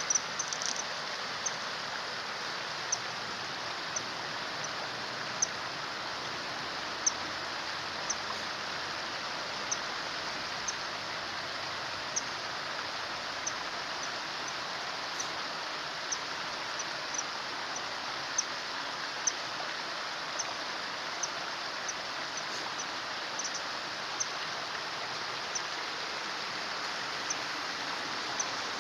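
A stream running steadily, with short, high bird peeps repeated at irregular intervals of about a second.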